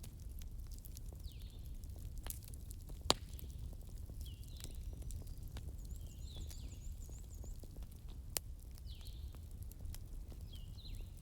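Burning wood crackling, with scattered sharp pops (the loudest about 3 s in, another near 8.5 s) over a steady low rumble. Short chirps from a bird repeat every second or so, with a brief high trill a little past the middle.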